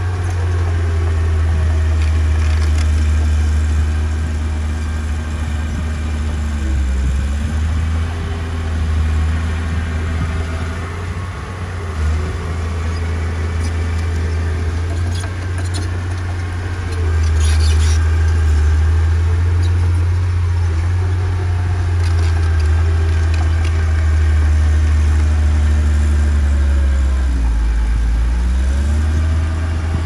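Heavy diesel engine of earthmoving machinery running steadily with a deep rumble. Its pitch dips briefly and recovers twice, about a quarter of the way in and again near the end.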